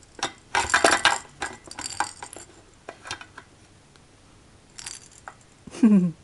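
A plastic rattle ball clattering and knocking against a metal muffin pan: a quick run of clinks and knocks in the first couple of seconds, then a few scattered taps. Near the end, a short vocal sound falling in pitch.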